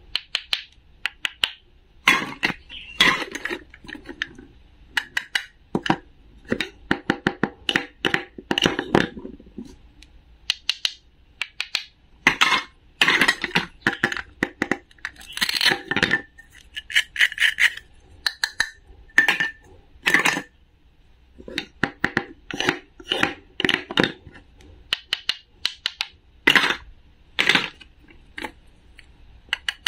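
Irregular clicks, taps and knocks of a toy cutting-food set: a wooden toy knife striking a wooden cutting board and plastic toy food pieces clicking as they are pulled apart, handled and set down.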